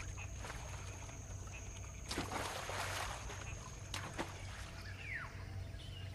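Water splashing and lapping as macaques swim across a river, with a fuller splash about two seconds in and a few short knocks. Near the end a single falling bird call sounds over a faint steady high-pitched hum.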